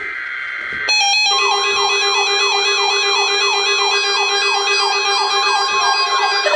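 NOAA Weather Radio alert coming in: a brief burst of steady data tones, then weather radio receivers' alarms sound together about a second in. One is a siren-like tone that sweeps down over and over, about three times a second, over steady electronic tones.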